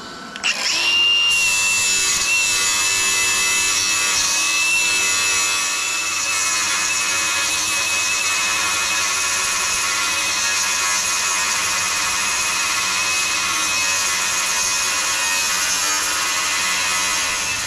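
Milwaukee angle grinder starting about half a second in and running with a steady high whine as its disc grinds down a weld on steel.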